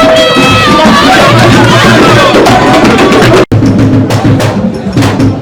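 Live music with drums and singing voices. It cuts off abruptly about three and a half seconds in, and percussion with sharp clicks carries on after the cut.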